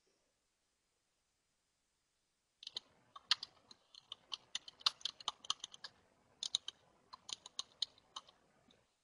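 Typing on a computer keyboard: a run of irregular key clicks that starts about two and a half seconds in, pauses briefly near the middle, and stops shortly before the end.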